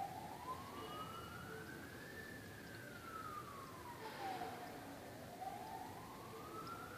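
Faint emergency-vehicle siren wailing, one slow tone rising and falling about once every five seconds.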